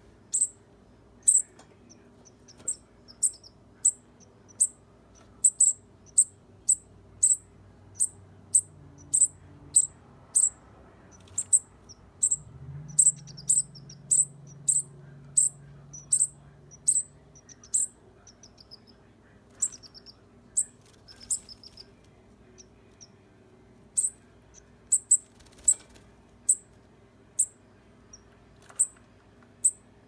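Fledgling songbirds calling with short, high-pitched chirps, about one every half-second to a second with a few short pauses, some followed by a quick trill.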